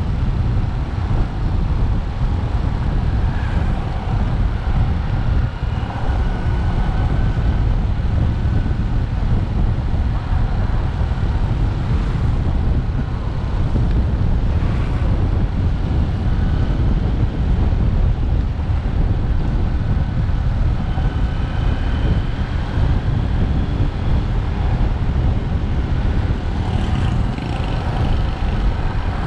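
Motorcycle being ridden along at a steady pace, its engine running under a steady low rumble of wind on the microphone.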